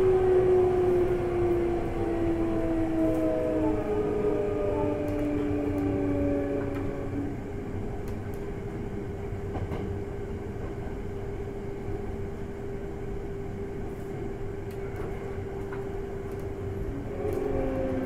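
Running sound inside a Hankyu 8300 series electric train with a Toyo GTO VVVF inverter: the motor and inverter whine sounds as several tones that slide slowly down in pitch over the first seven seconds, then settles to one steady tone over the rumble of the wheels on the track.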